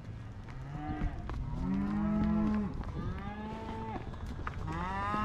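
Beef cattle mooing in a crowded pen: a short call about a second in, then three long, drawn-out moos one after another. The cows and calves are being sorted apart for weaning.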